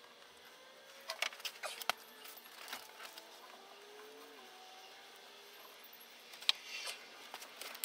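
Faint handling noises from work on a PVC pipe end: a few sharp clicks and taps about a second in and again near the end, with light rustling of a rag wiping the pipe.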